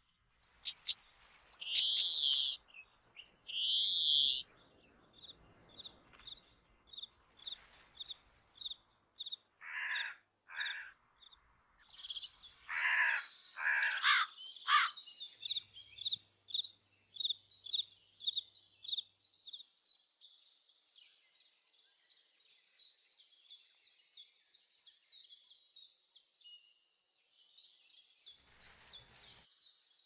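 Wild birds singing and calling: a high note repeated about twice a second, harsh noisy calls in the middle, and a fast, rapid trill of notes in the second half.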